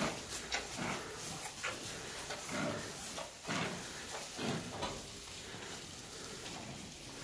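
Holstein-Friesian cows in a straw-bedded barn making short animal sounds about once a second, which die down after about five seconds, over the rustle of straw as they move.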